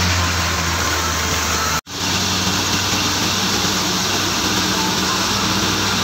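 Tractor-driven wheat thresher running steadily: a continuous loud engine drone with a low hum and the noisy whirr of the threshing drum. The sound cuts out for an instant a little under two seconds in, then carries on unchanged.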